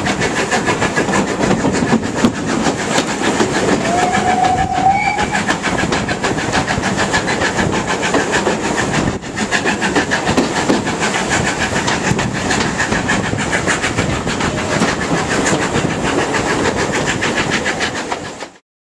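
Steam-hauled passenger train running, heard from a carriage window behind an LMS 4F 0-6-0 locomotive: rail and locomotive noise with a fast, even beat, and a brief rising tone about four seconds in. The sound cuts off suddenly near the end.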